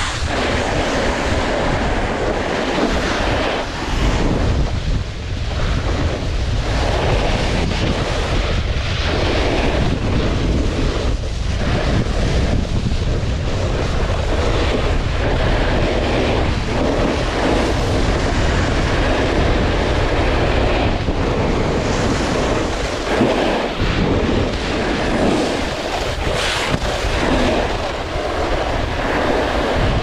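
Wind buffeting the microphone of a camera carried by a snowboarder riding down the slope, a heavy continuous rush with uneven swells, over the scrape of the board's edges on hard, icy snow.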